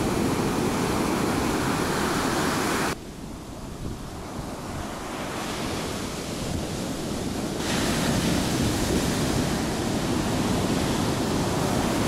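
Shore-break surf crashing and washing up the sand, with wind on the microphone. About three seconds in it cuts abruptly to a quieter wash of surf, which builds back up again around eight seconds in.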